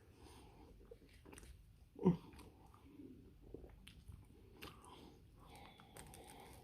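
Close-up mouth sounds of a person chewing and biting into a chili dog on a toasted bun: soft wet chewing with small clicks, and one short, louder low sound about two seconds in.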